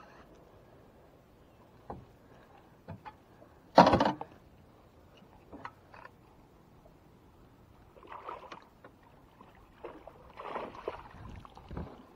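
Water splashing and light knocks against the side of a boat as a hooked largemouth bass is played at the surface and scooped up in a landing net. The loudest sound is a single sharp burst about four seconds in, and there are splashy stretches near the end.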